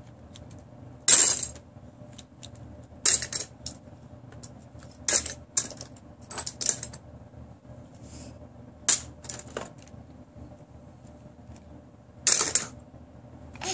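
Small toy cars dropped one after another into a plastic bin of toys, each landing with a sharp clatter against the other toys. About a dozen clatters come in small clusters every second or two, the loudest about a second in and near the end.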